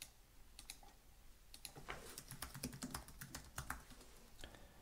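Faint typing on a computer keyboard: a few separate key clicks, then a quick run of keystrokes about one and a half seconds in that lasts about three seconds.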